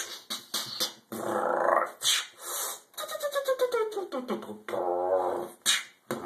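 Techno-style vocal beatboxing: quick mouth clicks and hissing hi-hat sounds, a long falling vocal glide about three seconds in, then a wobbling buzzy tone near the end.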